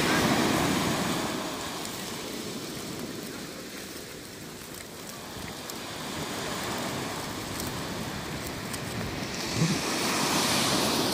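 Sea surf washing in, with wind buffeting the microphone; a wave swells up and rushes in near the end.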